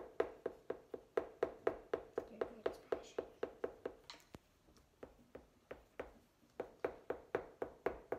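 Rapid, even tapping, about five taps a second, each tap with a short ringing note; the taps thin out and grow faint for a couple of seconds midway, then resume.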